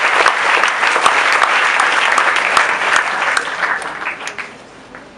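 A congregation applauding after a call of "Hallelujah", dying away about four seconds in.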